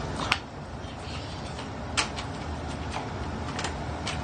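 Plastic parts of a toy dart blaster clicking as it is reloaded: four sharp, scattered clicks over a steady background hiss.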